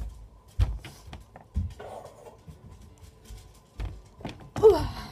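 A few dull thumps and light clicks from someone moving about and handling things close to the microphone. A brief voice sound comes near the end.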